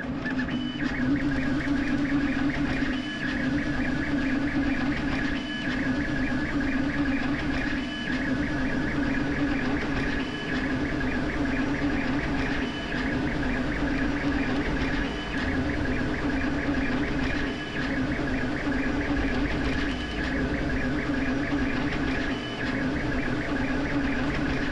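Creality K1C 3D printer printing at high speed: a steady whir with a fast chatter from the print head's rapid back-and-forth moves. A short high tone and a brief dip in the sound come about every two and a half seconds.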